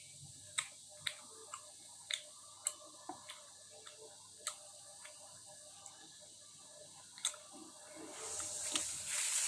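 Faint eating sounds from a bowl of spicy noodles: scattered sharp small clicks with soft wet chewing sounds in between, then an airy hiss that grows louder in the last second or so.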